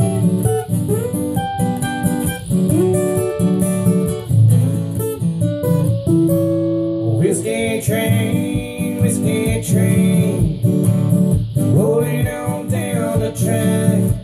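Two acoustic guitars playing together, strummed chords under a picked melody line with bent notes.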